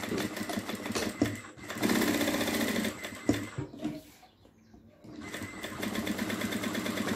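Industrial sewing machine stitching fabric in rapid, even runs. It speeds up and gets louder about two seconds in, stops a little after three seconds while the fabric is repositioned, and starts stitching again about five seconds in.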